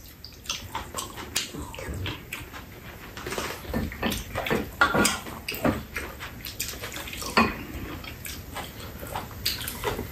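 Two people eating: irregular wet chewing and mouth sounds, with spoons and chopsticks clicking and scraping against a frying pan and bowls.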